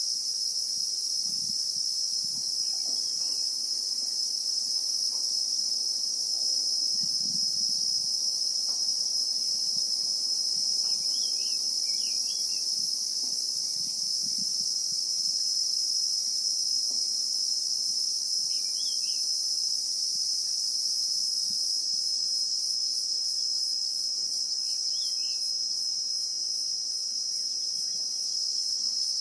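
Dense, steady, high-pitched shrilling of cicadas, the insects known in South Africa as Christmas beetles, with a few faint short bird chirps.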